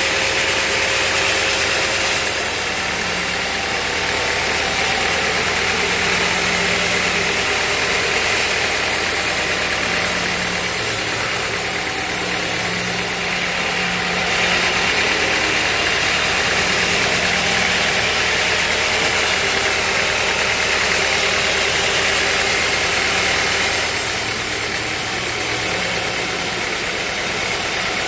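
Band sawmill running steadily, a loud continuous mechanical noise whose tone shifts a few times.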